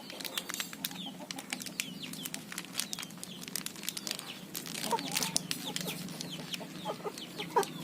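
Crinkling and clicking of a medicine capsule packet being torn open by hand, with a chicken clucking a few times in the second half.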